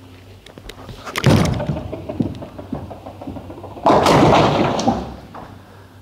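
Urethane bowling ball landing on the lane with a thud about a second in and rolling, then striking the pins near the four-second mark, the pins clattering for about a second.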